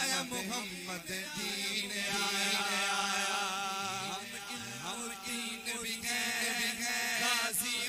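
A man's voice chanting a devotional Urdu/Punjabi tarana, holding long, wavering notes.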